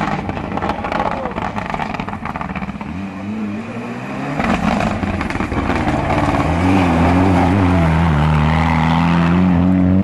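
Mitsubishi Lancer Evolution rally car's turbocharged four-cylinder engine revving hard on a gravel stage, with gravel spraying and crackling under the tyres. About halfway through it gets louder and then holds a steady high note.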